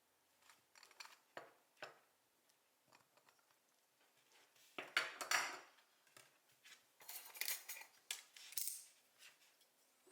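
A small tool clicking and scraping against a hard work surface while cutting a thin sheet of modelling dough. Light scattered clicks, with longer scraping strokes about five seconds in and again a couple of seconds later.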